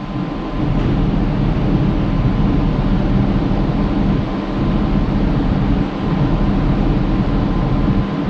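A boat engine running steadily, a low, even drone that cuts off abruptly at the end.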